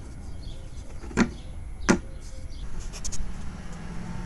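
Wooden lid of a handmade box on leather hinges knocking shut: two sharp wooden knocks about two-thirds of a second apart, over a steady low rumble.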